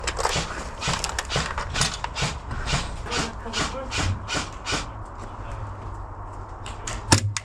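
Footsteps of a player moving quickly, about two to three steps a second, fading out about five seconds in, followed by a couple of loud sharp cracks near the end.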